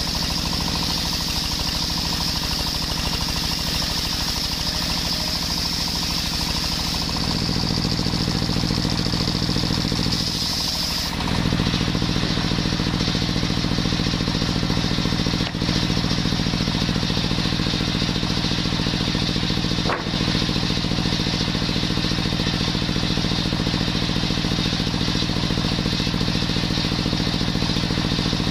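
Stationary engine driving a belt-driven bench circular saw, the blade cutting lengthwise through a coconut-wood beam with a high whine. About ten seconds in the cut ends and the whine stops, leaving the engine and free-spinning blade running steadily, with two brief knocks later on.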